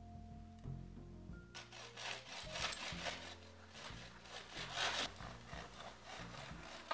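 Knife sawing through a baked fruit loaf on a wooden cutting board, with repeated rasping back-and-forth strokes starting about a second and a half in. Soft background music underneath.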